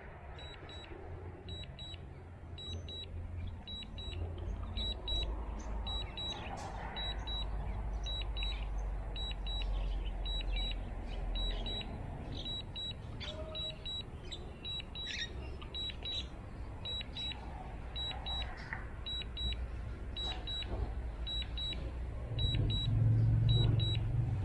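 Drone remote controller giving short, high-pitched electronic double beeps a little faster than once a second, the alert it sounds while the aircraft is returning to home. Under it runs a low steady rumble that grows louder near the end.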